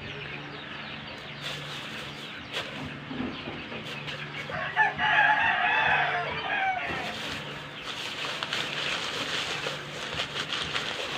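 A rooster crows once, a loud call of about two seconds starting about five seconds in, with clucking, light clicks and a low steady hum around it.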